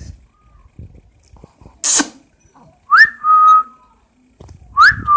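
A person whistling the same call twice, about two seconds apart: a quick rising note, then a held, slightly lower steady tone. A short hiss comes just before the first call.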